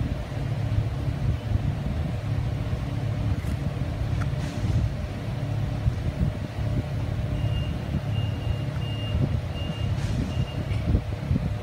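Steady low rumble of shop machinery, with a vehicle backup alarm giving about six short high beeps in the second half.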